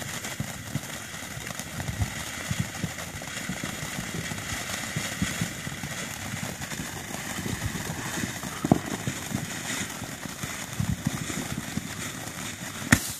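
Ground fireworks fountain spraying sparks: a steady rushing hiss with scattered crackling pops, a few of them louder.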